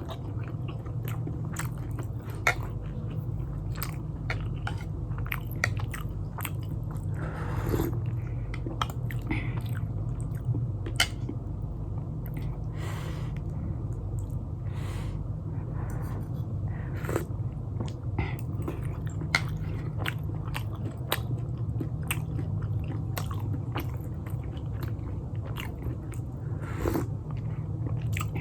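Close-miked chewing and biting of pan-fried momo dumplings dipped in jhol, with many short wet clicks and smacks and a few longer slurping sounds. A steady low hum runs underneath.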